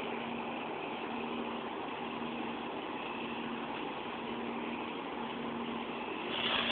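Steady mechanical hum with a faint held tone, growing slightly louder near the end.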